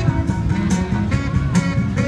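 Loud music with a steady beat and a strong bass line.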